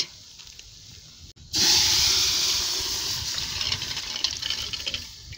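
Cooked chicken poured from a steel pot into masala frying in hot oil, setting off a loud sizzle. The sizzle starts about a second and a half in and slowly dies down.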